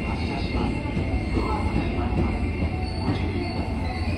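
JR West 201 series electric train standing at the platform, running with a steady low hum and a few thin, steady high tones over it.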